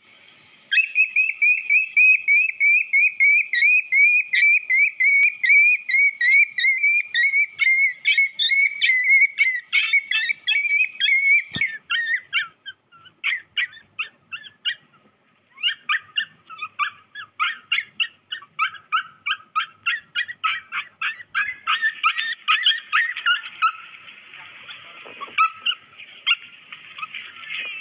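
A dog in a mating tie with a Siberian husky yelping and whimpering in rapid, high-pitched cries, about four a second. The cries pause briefly about halfway, then resume more raggedly.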